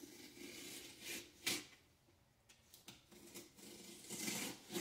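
Utility knife slitting the cardboard of a tall shipping box, in a few short cutting strokes, with a sharp snap about one and a half seconds in and a longer cut near the end.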